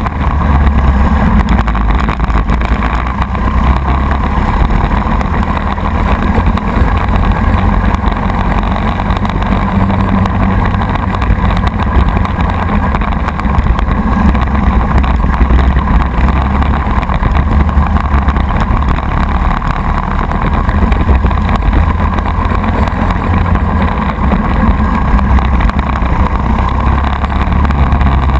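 Racing kart's Briggs & Stratton Animal four-stroke single-cylinder engine running hard, heard from on board the kart. The engine note swells and eases steadily through the laps.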